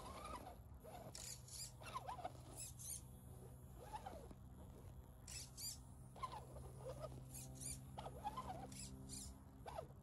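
Electric motor and gearbox of a 1:10 Defender-style RC crawler whining in short throttle pulses as it crawls, the pitch rising and falling several times over a faint steady hum, with light high squeaks between.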